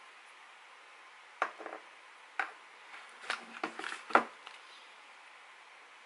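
Plastic lipstick tubes and their small cardboard boxes being handled and set down on a table: a few light clicks and knocks, then a quick cluster about four seconds in, the last one the loudest.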